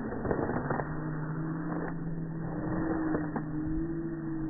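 A steady motor hum with two held tones, the higher one creeping slightly upward, with a few light clicks over it.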